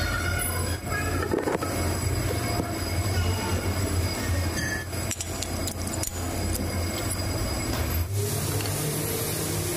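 Metal lathe running with a steady hum while its tool cuts a metal shaft, with scraping and scattered clicks. The hum changes pitch about eight seconds in.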